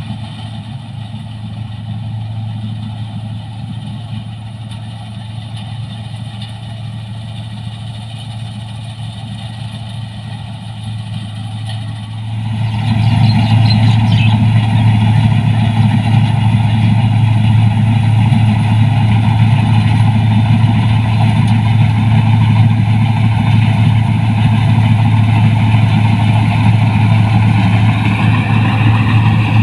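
Rice combine harvester's engine running steadily at working speed while it harvests, a low droning hum. About twelve seconds in it suddenly gets much louder and stays loud.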